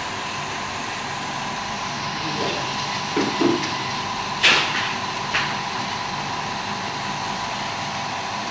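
Steady whirring of running machinery with a thin, steady whine, from the laser repair station. A few short knocks and clicks come between about three and five and a half seconds in, the sharpest about four and a half seconds in.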